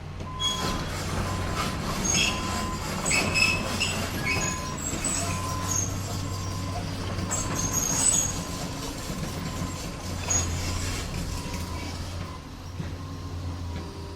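Excavator at work: its diesel engine runs with a steady low hum while steel parts squeak and clank in many short, high-pitched squeals, busiest in the first half.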